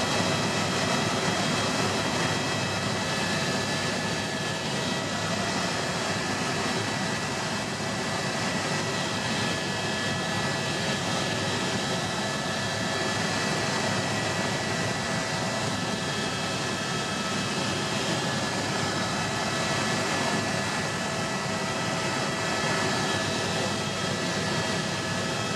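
Helicopter in cruising flight, heard from inside the cabin: a steady rushing drone of engine and rotor with a thin, steady high whine on top, unchanging throughout.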